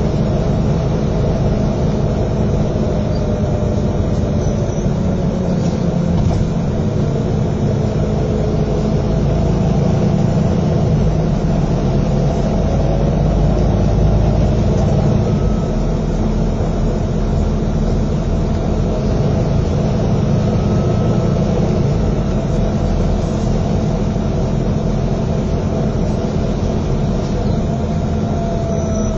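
Double-decker bus's diesel engine droning and road noise, heard from inside the passenger saloon while the bus drives along. The engine pitch slides up and down several times as it pulls away, changes gear and eases off.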